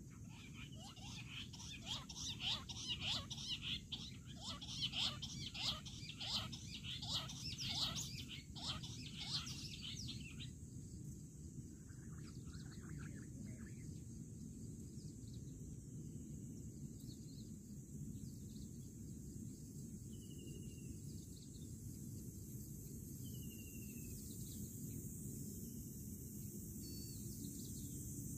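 Jungle bush quail calling: a rapid series of harsh, repeated notes, about two a second, for some ten seconds, then stopping suddenly. A few faint, short, falling chirps follow later.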